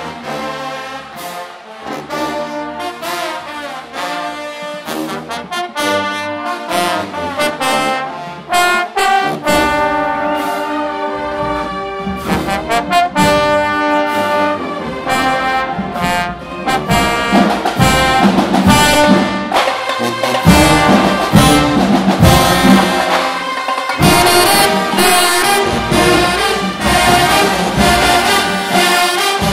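Marching band brass (trombones and trumpets) playing a loud, driving tune over drums. The music grows louder and fuller, with heavier low drums and bass coming in about halfway through.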